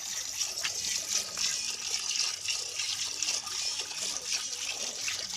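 A buffalo being milked by hand: squirts of milk hissing into a pail, one jet after another in a quick repeated rhythm.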